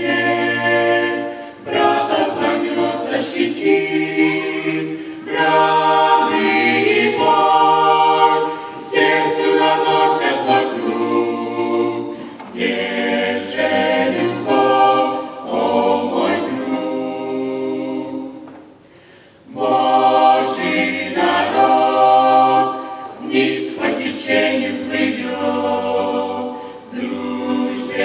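A small mixed group of women's and men's voices singing a gospel song a cappella in harmony, in long sung phrases with a short break about two-thirds of the way through.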